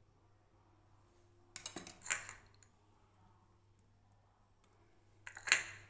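Two brief clusters of light clicks and clinks, about two seconds in and again near the end, from kitchen dishes and utensils being handled over a glass bowl.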